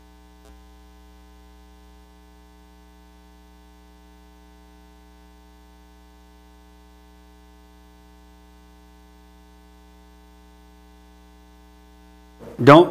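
Steady electrical mains hum, a low buzz with several fixed overtones, with a faint click about half a second in. A man's voice starts just before the end.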